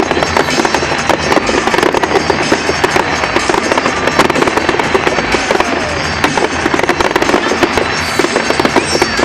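Fireworks display at its height: a dense, continuous crackling and banging of many shells going off at once, with no break.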